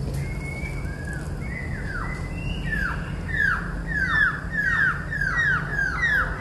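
A bird singing a series of short downward-slurred whistled notes, scattered at first, then repeated about three times a second and louder from about three seconds in, over a steady low background rumble.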